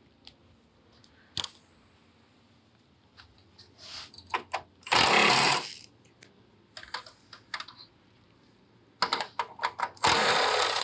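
Cordless right-angle impact running in two short bursts, about a second each, near the middle and at the end, backing out the header panel's bolts. Small clicks and knocks from the tool and socket being handled come in between.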